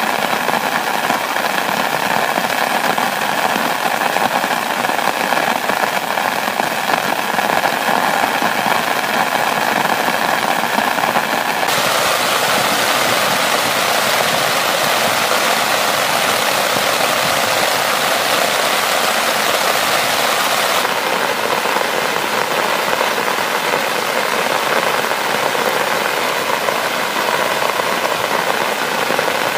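Steady rain falling on a nylon tent fly and the surrounding forest vegetation, a continuous hiss. It turns brighter and heavier about twelve seconds in and softens again a little after twenty seconds.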